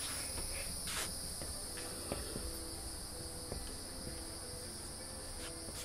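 Steady, high-pitched chorus of insects singing outdoors, unbroken throughout. Faint scratches and taps of a marker writing on a whiteboard sit beneath it.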